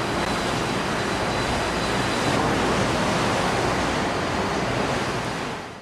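Steady rushing noise of wind and sea, waves breaking along a warship's hull, heard from a ship under way; it fades out at the very end.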